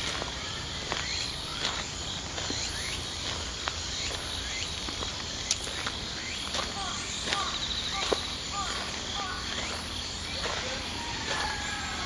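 Autumn insects chirping steadily in the undergrowth, a continuous high trill. Scattered light ticks and taps and a few short higher chirps sound over it.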